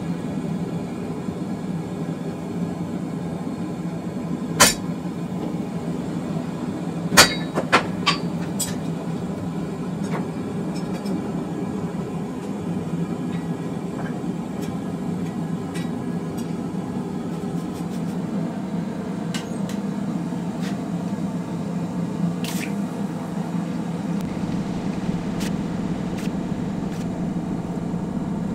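A few sharp metallic clinks of tongs and hot steel on the anvil over a steady low mechanical hum. One clink comes about five seconds in and a cluster follows around seven to nine seconds, with fainter ticks later.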